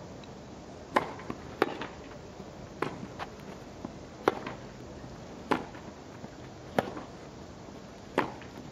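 Tennis rally on a grass court: about seven sharp racket strikes on the ball, roughly one every second and a half, with softer ball bounces between them, over a low steady background noise.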